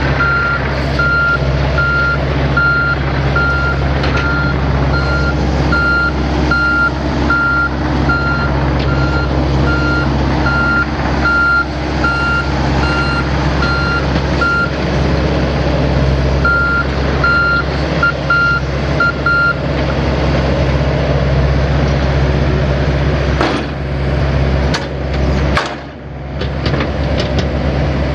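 Mini excavator diesel engines running with a travel alarm beeping about twice a second as the machines track, the beeping pausing briefly, then stopping about two-thirds of the way through. A few knocks near the end.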